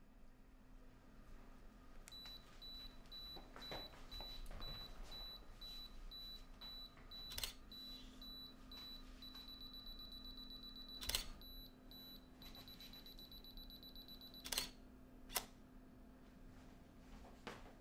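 Canon EOS DSLR self-timer beeping at a steady slow pace, then speeding up to rapid beeping before the shutter clicks. A few other sharp clicks come in between, the loudest about eleven seconds in.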